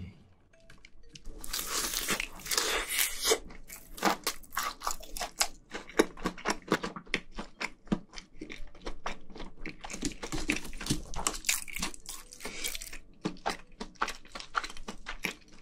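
Close-miked crunching and chewing of a spicy fried chicken drumstick, the crisp breading crackling in a dense run of bites, with the meat being torn apart.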